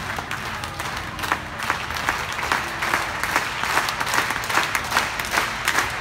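Audience applauding. The clapping turns into an even, rhythmic clap in unison, about two to three claps a second, in the second half.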